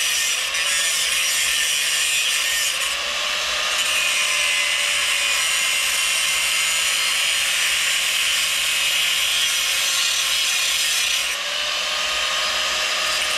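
Corded power tool cutting through a new exhaust pipe in one continuous cut. The noise is steady and mostly high-pitched, with a faint motor whine underneath that wavers slightly.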